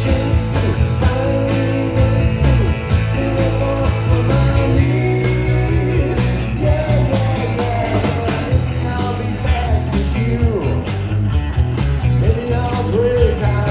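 Live band playing a country-rock song, with guitar, a steady bass line and a singer.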